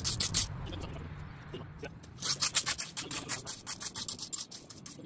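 Shovel scraping and crunching into gravel ballast: a short burst of scrapes near the start, then a quick run of short gritty strokes from about two seconds in.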